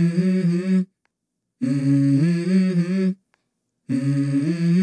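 A hummed melody in the intro music: a short phrase of a few held, stepping notes, repeated with brief silences between. One phrase ends about a second in, a full phrase follows, and the next begins near the end.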